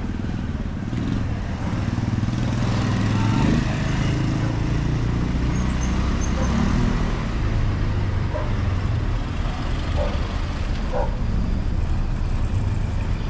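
A motor vehicle's engine running close by in street traffic, a steady low rumble that grows louder about two seconds in and holds.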